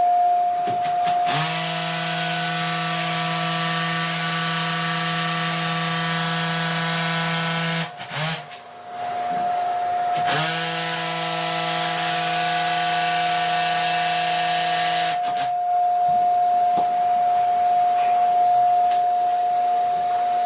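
An electric power tool's motor runs in two long bursts of several seconds each, spinning up quickly at the start of each, with a brief pause between them.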